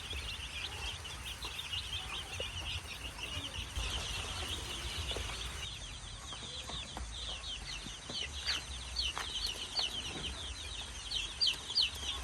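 A brood of chicks peeping constantly, many short high falling peeps overlapping one another, growing more distinct and louder in the second half.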